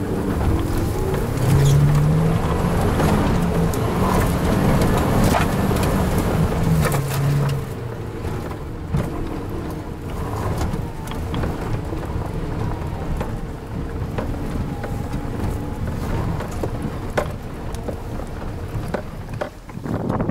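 A 4x4's engine revving hard under load on a steep, rutted dirt climb, rising in pitch in the first couple of seconds and easing off after about seven seconds. After that it runs more steadily, with repeated knocks and rattles.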